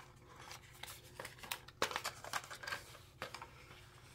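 Light rustling and scattered small clicks of cardboard and plastic packaging being handled as a small earbuds box is opened.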